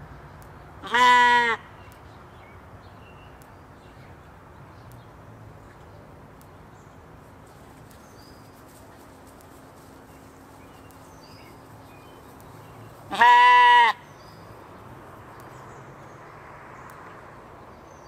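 Katahdin sheep bleating twice: two loud, wavering calls, each under a second long, the first about a second in and the second about twelve seconds later.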